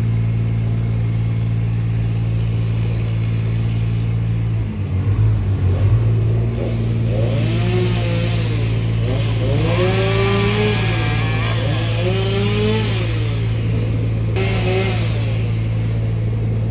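A heavy work engine runs steadily with a low hum under everything. From about six seconds in, a chainsaw up in the tree revs up and down several times, each rise and fall lasting a second or two.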